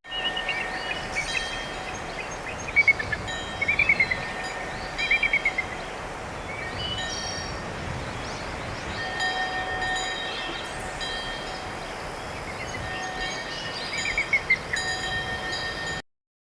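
A 3Q Qoo!-XL mobile phone ringtone with chime-like tones and short warbling chirps over a steady hiss, starting and stopping abruptly.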